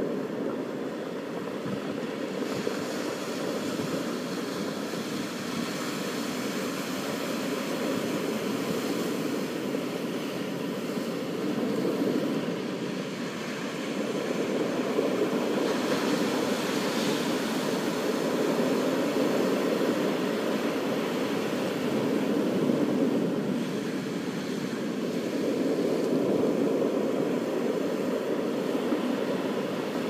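Ocean surf breaking and washing onto a beach: a steady rushing that swells and eases every several seconds.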